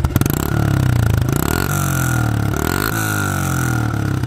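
2018 Honda CRF110F's small single-cylinder four-stroke engine being revved: a few throttle blips, the pitch rising and falling each time, easing back toward idle near the end.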